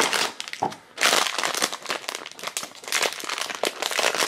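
Foil blind-box pouch crinkling and crackling as it is handled and opened by hand, loudest about a second in.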